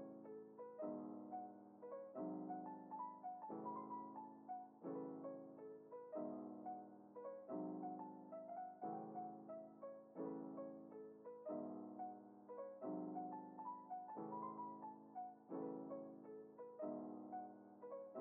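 Background music: a soft piano piece with chords changing about every second and a half and a simple melody on top.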